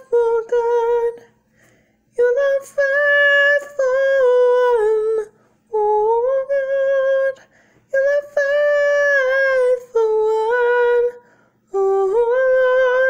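A woman singing alone with no accompaniment: long held, wordless-sounding phrases, five in all, with short breaths between them.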